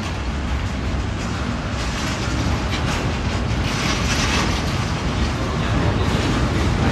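Train running past on the line: a steady rumble with rapid, irregular clattering of wheels over the track, growing slowly louder.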